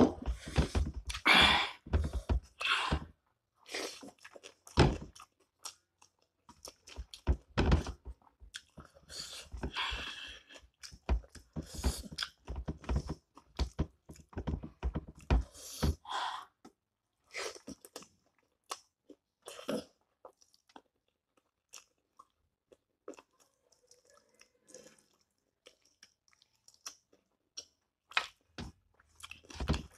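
Close-up chewing and crunching of a person eating rice and curry by hand: busy, wet mouth noises and crunchy bites for the first half, then sparser and fainter ones, picking up again near the end.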